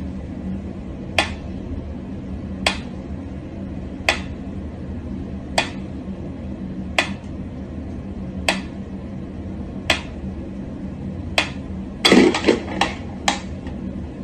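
Mechanical pendulum metronome ticking slowly and evenly, one sharp tick about every second and a half. Near the end a quick run of several louder knocks and clatter comes in.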